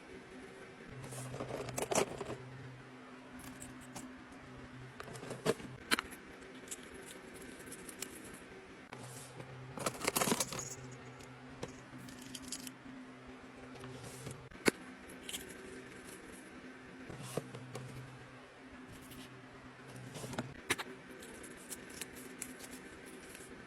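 Metal self-defence keychain pieces and key rings clinking and jangling as they are handled, in scattered clicks with a denser clatter about ten seconds in. A low hum comes and goes underneath.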